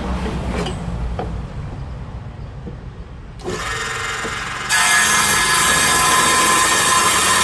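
Power saw ripping lengthwise through wood: after a low rumble with a few knocks, the saw runs up a little past the middle and then bites into the timber about two-thirds of the way in, becoming much louder, a steady rasping cut with a faint high whine.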